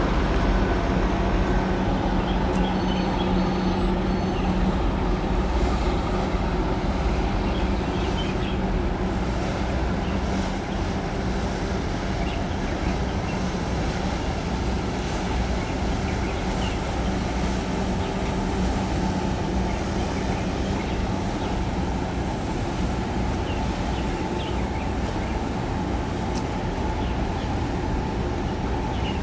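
Steady low engine rumble with a low hum, easing slightly over the stretch: the diesel engines of passing harbour vessels.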